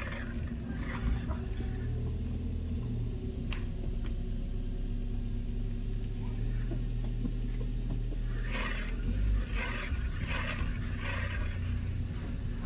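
Steady low rumble of a moving road vehicle, with a few short bursts of higher sound about two-thirds of the way through.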